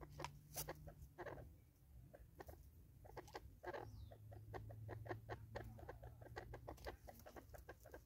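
Francolins pecking at seed on a wooden stump: a quick, irregular run of soft taps and clicks, with a few short low clucks.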